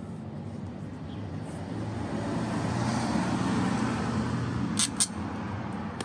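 A motor vehicle going by, its noise swelling and easing off with a low hum underneath. Two sharp clicks come near the end.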